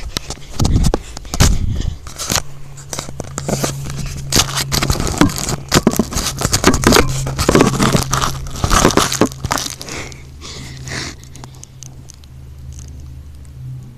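Handling noise on a phone's microphone: dense crackling, scraping and rustling as the phone is moved about and set down in grass, dying away about ten seconds in. A steady low hum runs underneath from a couple of seconds in.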